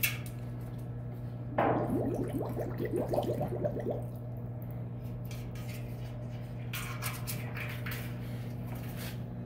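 Water sloshing and splashing in a galvanized metal stock tank as a clear acrylic submarine cylinder is pushed under for a leak test. It is loudest for a couple of seconds from about one and a half seconds in, with a few light drips and taps near the end. A steady low hum runs underneath.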